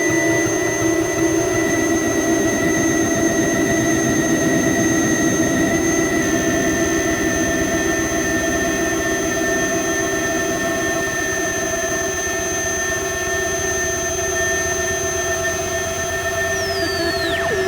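Soma Laboratories Lyra-8 analog drone synthesizer holding a dense, steady drone of many sustained tones, with a high piercing tone on top and a rough, noisy low end. Near the end several high tones sweep sharply downward in pitch.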